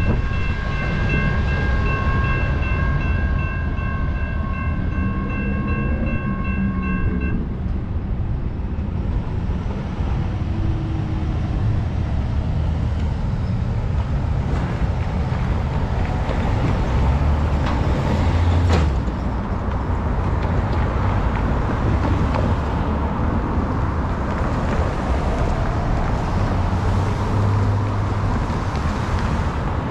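Railroad crossing warning bell ringing in rapid strokes, stopping about seven seconds in once the freight train has cleared the crossing. Under it and after it, the low rumble of the departing freight train and then cars driving across the tracks.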